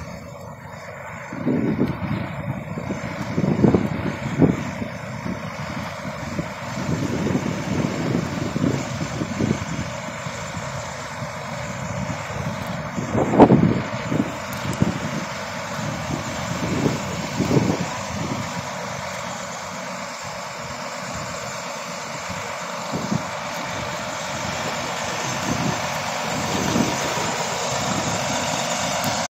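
Steady engine and traffic noise from semi-trucks around a truck-stop lot, with irregular low gusts of wind buffeting the phone's microphone, the strongest about halfway through.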